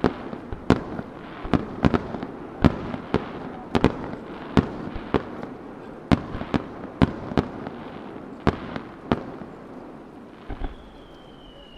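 Fireworks display: a fast, irregular string of sharp bangs from bursting aerial shells, about two a second, with crackling between them. Near the end the bangs stop and a high whistle sets in, slowly falling in pitch.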